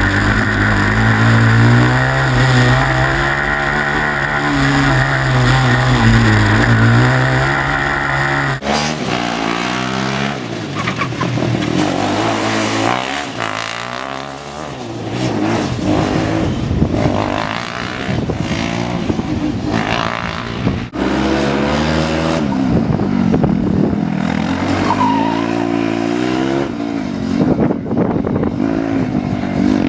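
Formula SAE race car engine revving up and down through tight corners, heard first on board close to the engine. After a cut about nine seconds in, cars are heard from trackside, engines rising and falling as they accelerate and brake past.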